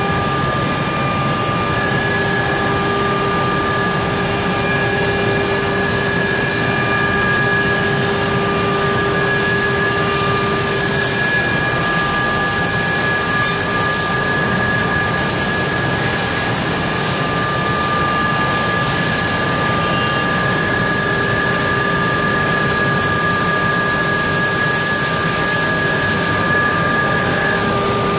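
CNC nesting router machining a wood panel: the spindle makes a steady high whine of several tones over a loud, even rush of cutting and dust-extraction noise. Near the end the highest whine tone drops out.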